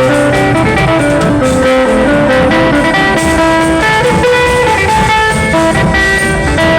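Music led by a plucked string instrument, with a busy melody over a steady beat.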